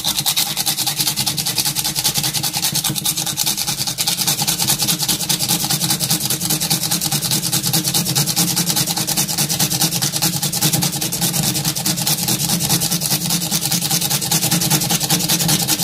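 A motor or engine running steadily, a constant drone with a fast even pulse.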